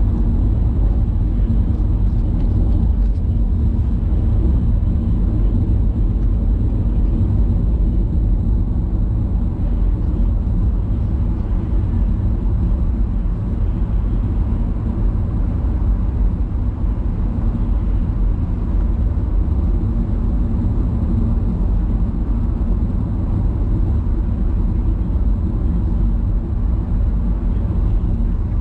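Steady low rumble of a moving vehicle, with an even engine hum and no change in speed.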